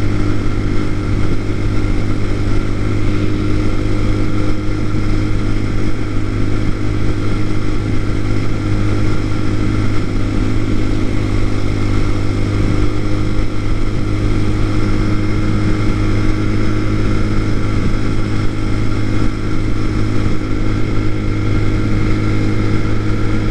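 TaoTao TBR7 motorcycle's single-cylinder engine running steadily while the bike cruises, with a rush of wind and road noise.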